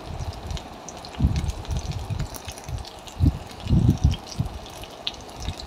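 Sliced onion and slit green chillies sizzling in hot vegetable oil in a kadai: a steady hiss with scattered small crackles and spits. A few dull low thuds come through, the loudest a little past the middle.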